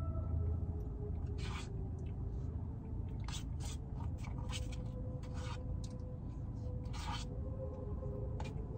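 Paper food wrapper rustling and crinkling in several short bursts as it is handled, over a steady low hum and faint held notes of music from the car radio.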